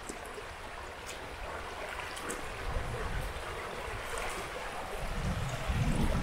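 Shallow river running over a pebbly riffle: a steady rushing and rippling of water, with a low rumble that builds near the end.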